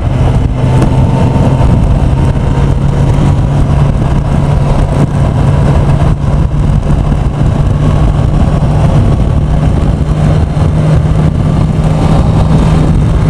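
Kawasaki Ninja ZX-10R's inline-four engine running steadily at cruising speed, mixed with a steady rush of wind and road noise.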